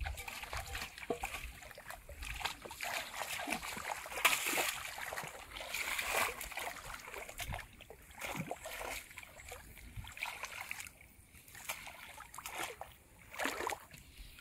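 Shallow muddy paddy water splashing and sloshing in irregular bursts as hands grope through it and feet wade, the loudest splash about four seconds in.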